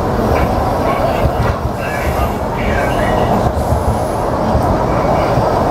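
Rail transit train running along the track: a steady rumble of wheels and running gear, with a few short, high wheel squeals.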